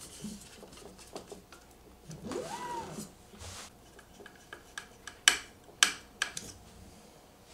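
Screwdriver and plastic fan shroud being handled as the shroud is fitted over a 3D printer hotend and screwed down: soft handling noise, then a few sharp clicks a little past the middle.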